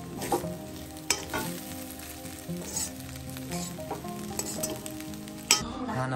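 Fried rice sizzling in a hot pan while a spatula stirs it, with a few sharp scrapes against the pan.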